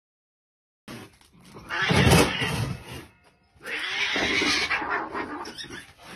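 Cat crying out angrily in two long bouts while fighting a rabbit, the first starting about two seconds in and the second just after.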